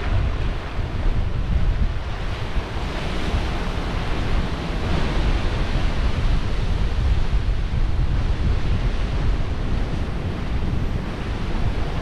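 Sea surf breaking against limestone cliffs and draining back off the rock ledges in a continuous wash, swelling slightly a few seconds in. Heavy wind rumble on the microphone underlies it.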